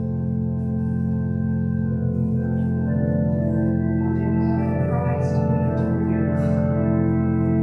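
Organ music: slow, sustained chords, each held for a few seconds before moving to the next.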